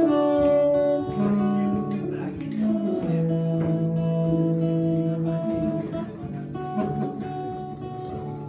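Acoustic guitar strumming in an instrumental passage of a song, with long held melody notes over it.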